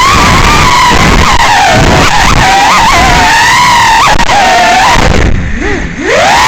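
Small electric motors of an FPV model whining loudly, the pitch rising and falling constantly with the throttle. A little after five seconds in the whine drops low and quieter, then sweeps sharply back up near the end.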